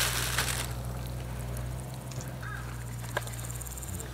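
Hot water poured from a stainless steel vacuum flask into a cup of instant ramen, the splashing stopping under a second in. Then outdoor quiet with a faint high insect buzz, a short bird chirp and a single tap.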